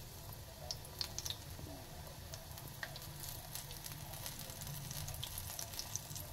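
Batter-coated spinach leaf fritters (palak pakoras) frying in hot mustard oil in a kadai: a steady sizzle with scattered small pops and crackles.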